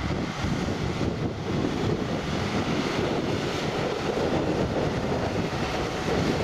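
John Deere 6140R tractor's diesel engine running steadily as the tractor drives past, pulling a loaded silage trailer.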